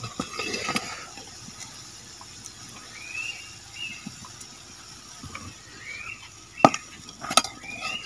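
A steel pan gripper clinking against the handle of an iron kadai as the pan is lifted off the stove, then two sharp metal clanks near the end as it is set down on the concrete ground. A few short, high, rising squeaky chirps come in between.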